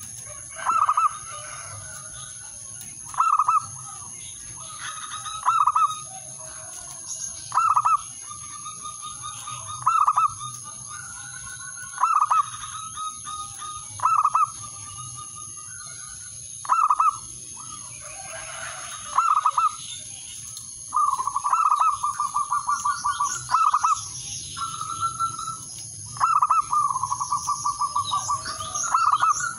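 Male zebra dove (perkutut) cooing: short bursts of rapid staccato coos about every two seconds, running into longer, drawn-out trilled phrases in the second half.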